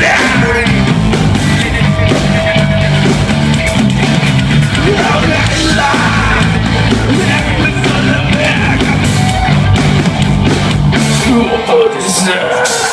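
Live rock band playing loudly between sung lines: drums, bass and electric guitar, with some singing or shouting.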